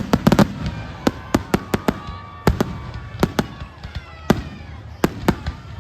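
Fireworks display: a run of sharp bangs and crackles, several a second near the start, thinning out in the middle and coming thicker again near the end.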